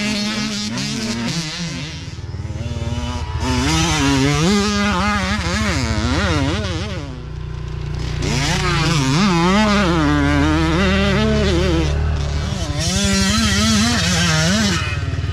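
Youth dirt bike engines revving hard as the bikes ride past. The pitch climbs and drops over and over as the throttle opens and closes, with two brief lulls.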